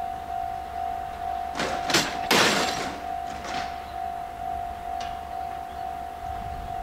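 Japanese level-crossing warning bell ringing in a steady pulse, about two strokes a second. Short bursts of hiss cut in over it, the loudest about two seconds in.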